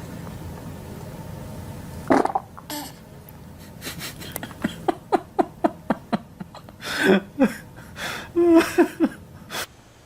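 A baby's fart as a low rumble lasting about two seconds, then laughter in short rhythmic bursts that starts about four seconds in and comes back twice near the end.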